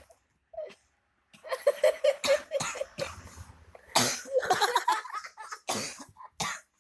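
A man coughing repeatedly: a run of quick, rapid hacking pulses, then several single hard coughs about four, six and six and a half seconds in.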